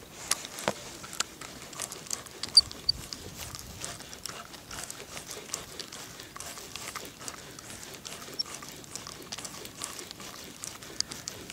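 Raindrops pattering close to the microphone: irregular sharp taps over a faint hiss, the loudest about two and a half seconds in.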